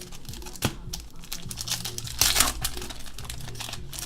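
Trading cards and foil card-pack wrappers being handled: crinkling and rustling with scattered clicks, and a louder crinkle about two seconds in.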